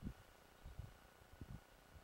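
Near silence, with three faint low thumps spread through it, the sort of noise a microphone picks up from wind or handling.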